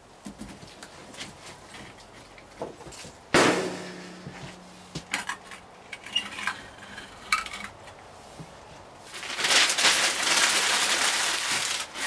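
Split firewood being stacked inside a brick oven: wooden knocks and clatter, the loudest about three seconds in. From about nine seconds on, a loud sustained rustle as newspaper is crumpled and stuffed under the wood.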